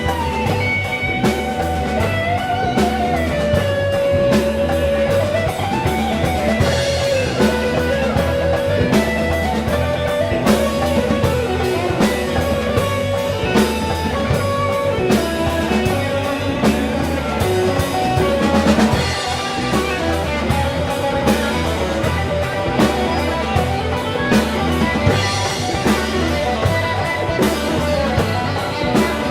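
Blues band playing live: a lead line with bending, sliding notes over a steady drum beat and a full low end, with no singing.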